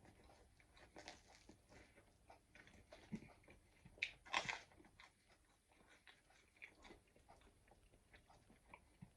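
A person chewing a thin, crispy-based pizza: faint, irregular mouth and crust sounds, with a louder crunch about four seconds in.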